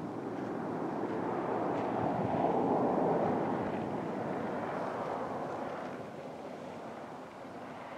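Wind rushing over the camera microphone: a steady noisy rush that swells about two to three seconds in and then eases off.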